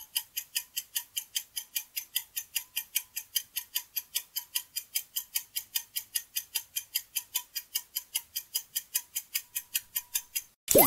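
Countdown-timer clock ticking sound effect, about four even ticks a second. Just before the end it stops and a louder, short swooping sound effect cuts in.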